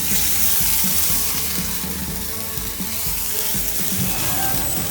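A seafood mix sizzling hard in hot olive oil in a frying pan, just added to the pan: a loud, steady frying hiss.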